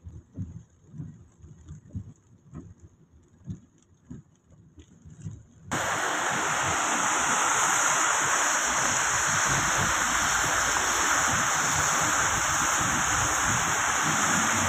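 Raindrops tapping irregularly on a car's windshield and roof, heard from inside the closed car. About six seconds in it cuts suddenly to a loud, steady rush of wind and wet-road tyre noise through an open window of the moving car.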